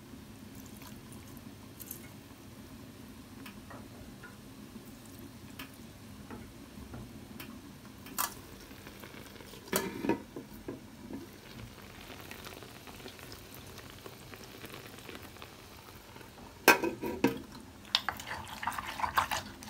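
Spoon stirring and scraping in a bowl while a dipping sauce is mixed, over a steady low hum. Sharp clinks come at about 8 and 10 seconds in, louder knocks near 17 seconds, and a quick run of clattering near the end.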